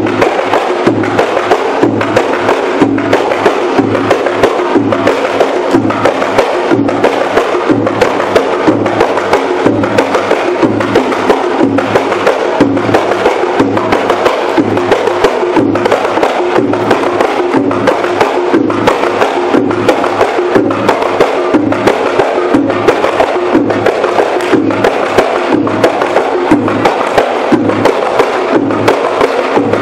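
Percussion-led music with a fast, steady drum beat over sustained lower tones.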